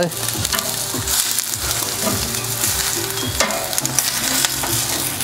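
Bratwursts and sliced onions sizzling in a cast-iron skillet, with the occasional click of metal tongs on the pan and grill grate as the sausages are set in.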